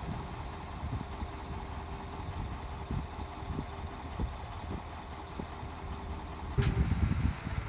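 Diesel engine of a 360 PS 6x6 expedition truck running steadily at low revs while it takes up a tow rope, with scattered light ticks. Near the end a sharp click comes, followed by a louder low rumble.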